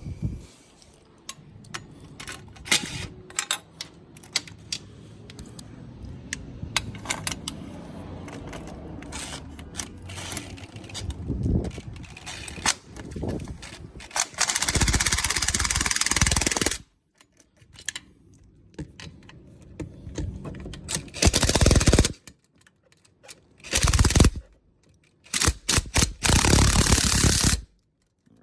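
Cordless impact driver hammering in four rattling bursts, set turned down, to run in and tighten the exhaust mounting bolts. Before the bursts, small clicks and clatter of the socket and bolts being handled.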